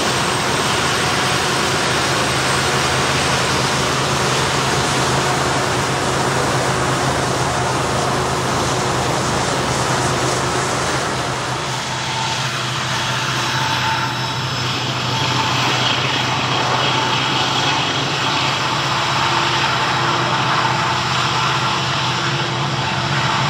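Multirotor camera drone's motors and propellers humming steadily, with the hum's pitch pattern shifting about halfway through.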